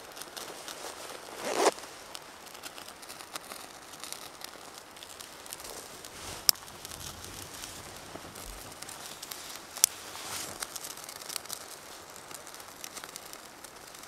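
Small twig fire crackling in a wood-burning camp stove, a steady run of faint ticks with two sharp pops a few seconds apart. A brief rustle of handling comes about a second and a half in.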